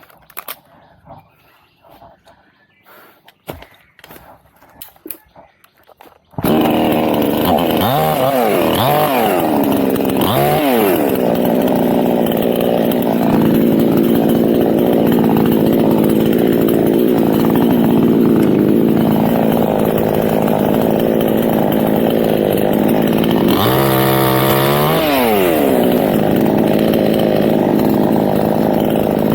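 Faint scattered knocks, then a chainsaw starts suddenly about six seconds in and runs steadily, revved up and back down a few times, up in a teak tree being felled.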